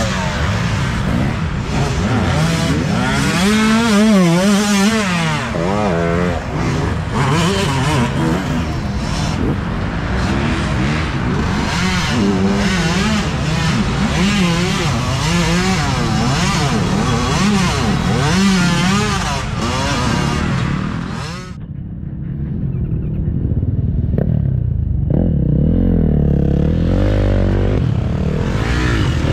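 Several dirt bike engines revving hard and overlapping as the bikes climb through deep mud ruts, the throttles opening and closing over and over. About 21 seconds in the sound changes abruptly to a single, more muffled engine, which revs up louder near the end.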